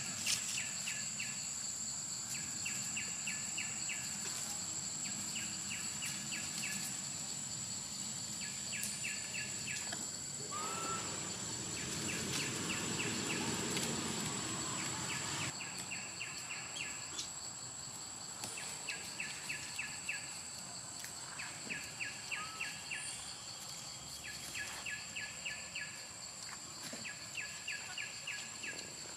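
Insect chorus made of two steady high-pitched drones, with short pulsed chirp trains repeating about every two seconds and a brief rising chirp twice. A louder rushing noise swells in the middle and cuts off abruptly about halfway through.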